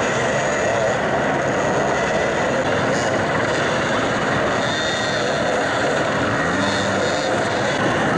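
Many enduro dirt bike engines revving at once as a pack of riders climbs a rocky hill, making a dense, continuous, loud engine din. About six and a half seconds in, one engine revs up distinctly above the rest.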